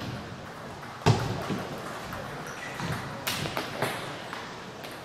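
Celluloid-type table tennis balls clicking off paddles, table and floor, ringing in a large hall. A sharp crack about a second in is the loudest, followed by a scatter of lighter, irregular ticks.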